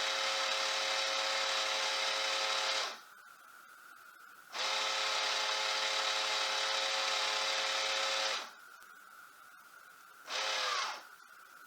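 Clack water softener control valve's small drive motor whirring as it steps through regeneration cycles. It stops about three seconds in, runs again for about four seconds, then gives one short run of under a second near the end.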